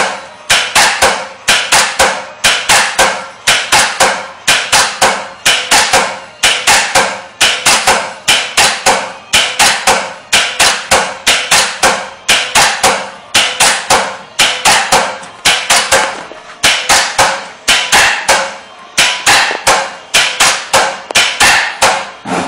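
Electromagnetic line contactor being switched in and out over and over, its armature and contacts slamming shut and dropping open in a rapid series of sharp metallic clacks, about three a second, in short runs with brief pauses.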